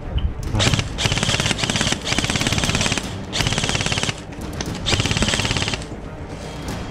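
Airsoft rifle firing full-auto in three bursts of rapid, evenly spaced shots, the first burst the longest.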